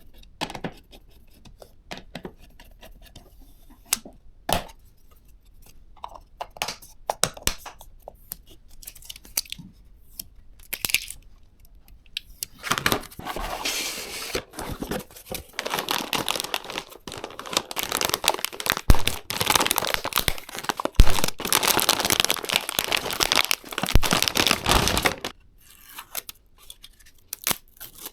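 Scattered clicks and taps of parts being handled during a PC build, then about twelve seconds of continuous crinkling and tearing, with a few sharp clicks through it.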